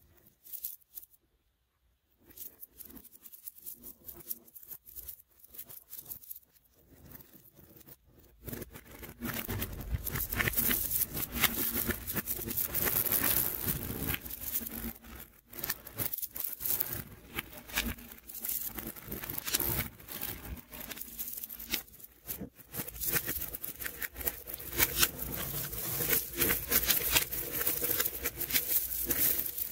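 Small neodymium ball magnets clicking and snapping together as strands of them are laid and pressed onto stacked layers of balls. The clicks are sparse at first, then become a dense, continuous clatter from about eight seconds in.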